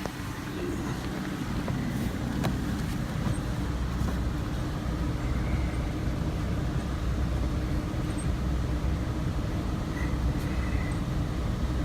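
Chevy Venture minivan's 3.4-litre V6 running steadily with a low hum.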